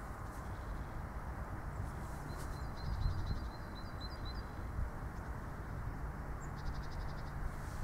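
Open-air winter ambience: a steady low rush of noise, with faint, high-pitched chirps of small birds in short series a few times and a brief run of faint clicks near the end.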